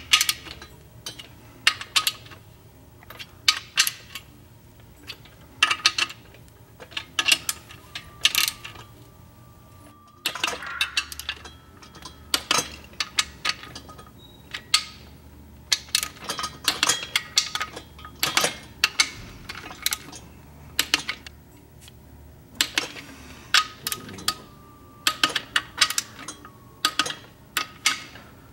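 A torque wrench's ratchet head clicking in short runs as main bearing cap bolts are turned down, with the odd metallic clink of the tool against the block. The bolts are being snugged in a crisscross pattern ahead of final torque to 41 foot-pounds.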